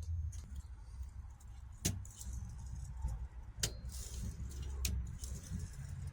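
A few separate sharp metallic clicks and light rattling from a 1938 Royal Mercury manual typewriter being handled, over a steady low rumble.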